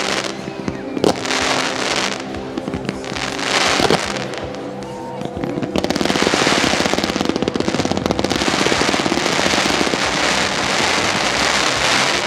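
Fireworks display: sharp bangs of aerial shells bursting about one and four seconds in, then from about six seconds on a dense, rapid crackling barrage of many bursts.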